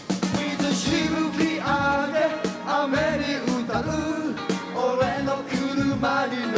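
Live band playing an upbeat pop-rock song, with drums and a melodic lead line that starts about a third of a second in.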